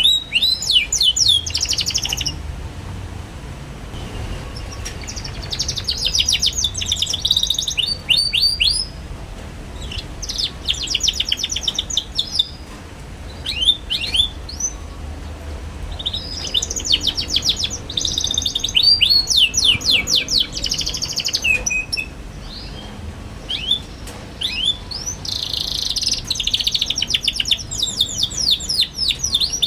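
Young canary singing in fast chattering trills ('ngeriwik'): bouts of rapidly repeated sweeping notes, each bout a few seconds long, with short pauses between them.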